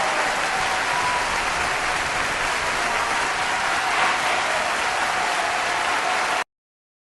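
Crowd applauding and cheering, a dense even clatter of clapping that cuts off abruptly about six and a half seconds in.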